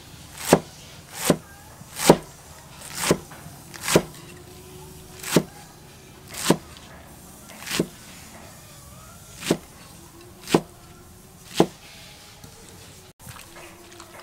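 Cleaver slicing cabbage on a wooden chopping block: about eleven chops, roughly one a second, each a short crunch through the leaves ending in a sharp knock on the wood. The chopping stops shortly before the end.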